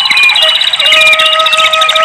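A flute (suling) playing long, held notes that step slowly between pitches, over a rapid high trill and short chirps of birds calling.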